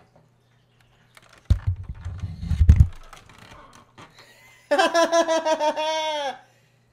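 Loud low thumps and clicks for about a second and a half as someone moves in and sits down right by the microphone. A few seconds later a man laughs hard in quick pulsing bursts, trailing off with a falling pitch.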